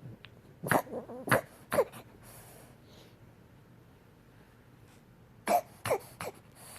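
A sleeping dog's muffled dream barks: short woofs that drop in pitch, three in quick succession about a second in and three more near the end.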